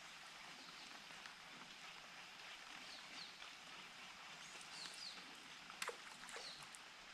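Quiet outdoor ambience: a faint steady hiss with a few short, faint bird chirps, and two small clicks about six seconds in.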